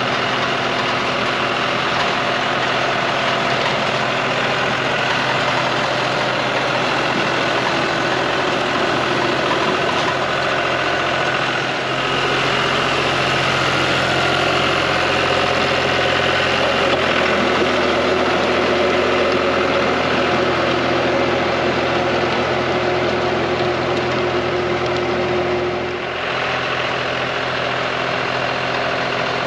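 John Deere 5055D's three-cylinder diesel engine running steadily under load, driving a PTO rotary tiller working the soil. The engine note shifts about twelve seconds in and again near the end.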